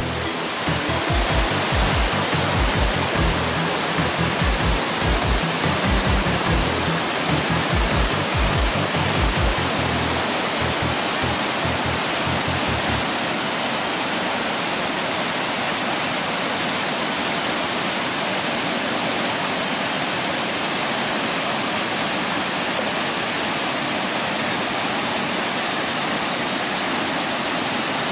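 Waterfall and cascading stream water rushing steadily over rocks. Irregular low thumping sits under it for roughly the first thirteen seconds, then stops, leaving the steady rush of water.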